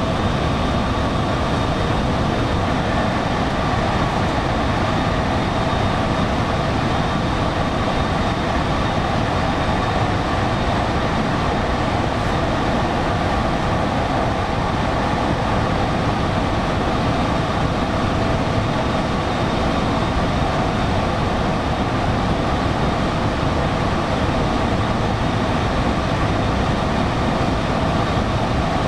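Electric passenger train running steadily between stations, heard from inside the carriage: an even rumble of wheels on rails with a faint steady hum over it.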